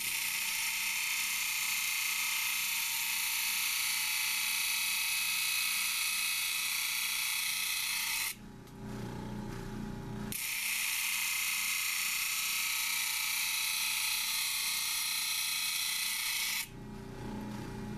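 Labradorite stone ground against a spinning flat lap disc: a steady, high grinding hiss for about eight seconds, a two-second break where only the machine's lower hum is heard, then grinding again for about six seconds. The stone's edges are being bevelled at an angle all the way around, the first step toward a domed cabochon.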